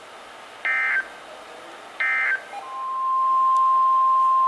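Two short bursts of warbling Emergency Alert System SAME data tones, the end-of-message code closing the previous warning. About 2.6 seconds in, a loud steady single tone near 1 kHz starts and holds: the 1050 Hz National Weather Service alert tone announcing the next warning.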